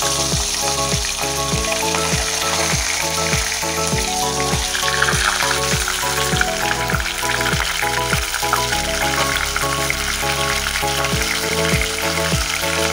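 Pieces of fish sizzling steadily in hot oil in an iron kadai, with background music that has a steady beat.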